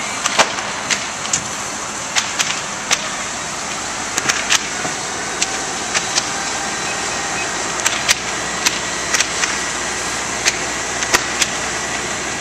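A large house fire burning, with scattered sharp crackles and pops at irregular intervals over a steady rushing noise from the flames, fire-engine motors and hose streams.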